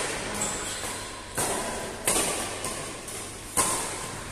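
Badminton rackets striking the shuttlecock in a fast doubles rally: three sharp hits, the second about two-thirds of a second after the first and the third about a second and a half later, each ringing on in a large echoing hall.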